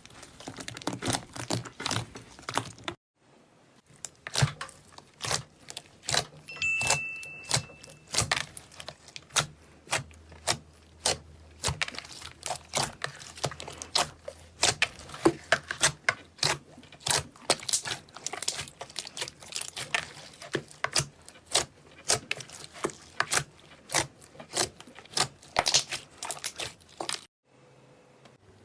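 Slime being squeezed and kneaded by hand, giving rapid, irregular sticky clicks and pops, with two short pauses.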